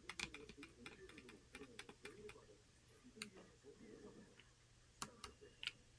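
Keystrokes on a Corne split mechanical keyboard: a quick run of key presses for the first couple of seconds, then a few scattered single presses.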